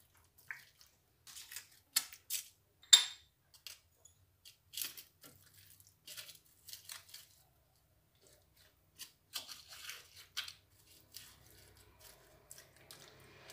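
Hands turning and pressing spice-coated pieces of lamb in a clay tagine: scattered soft wet squishes and clicks, the sharpest about three seconds in.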